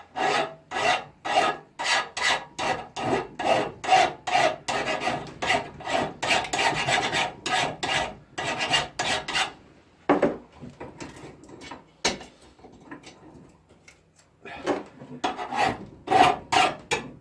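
Hand file scraping across a steel Damascus billet in steady strokes, about two a second, cleaning weld spatter off it. The strokes stop for a few seconds after about ten seconds, with a single click, then start again near the end.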